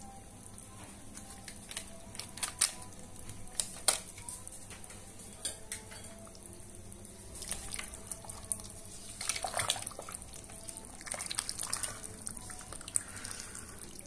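A spoon clinking and scraping in a pressure cooker pot as packet spice is stirred into cooked beef, with scattered sharp knocks and a busier clatter about two thirds of the way in.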